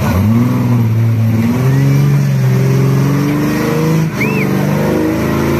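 Off-road buggy's engine revving and held at high revs, its pitch climbing slowly, while the buggy strains under load, stuck nose-down in a mud pit.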